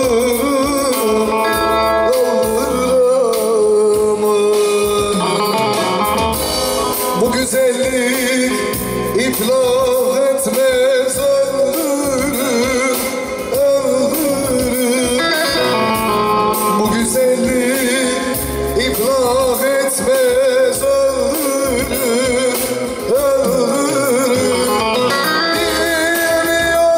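A man singing a Turkish Teke-region folk song (türkü) in a strong, ornamented, wavering voice, accompanied by a strummed bağlama (long-necked saz), amplified through a microphone and PA loudspeakers.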